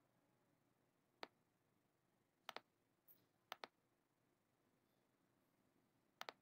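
A few short computer mouse clicks over near silence: a single click about a second in, close pairs of clicks around two and a half and three and a half seconds, and another pair near the end.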